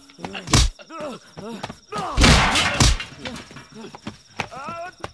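Film fight sound effects: heavy punch and body-hit impacts, one about half a second in and a dense cluster around two seconds in, with the fighters' grunts and shouts between them.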